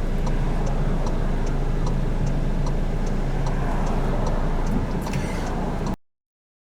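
Steady rumble of a car driving, with a regular ticking of about two to three ticks a second over it; the sound cuts off abruptly about six seconds in.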